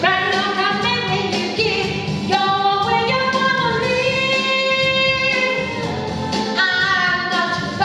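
A woman singing a pop song live into a handheld microphone over musical accompaniment, holding one long note from about three seconds in to about five seconds in.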